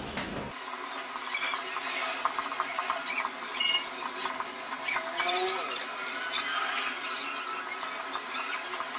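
Marker pen squeaking and scratching on a whiteboard as a line of text is written, with a short, sharper squeak about three and a half seconds in.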